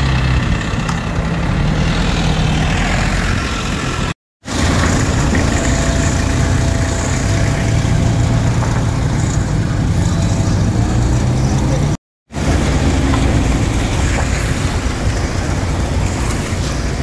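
Engines of pickup trucks and a van running at low speed as they drive slowly past close by. The sound cuts out for a moment twice.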